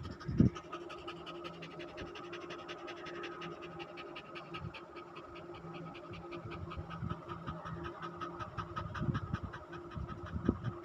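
German shepherd dog panting fast, several quick breaths a second, over a faint steady hum. There is a short knock about half a second in.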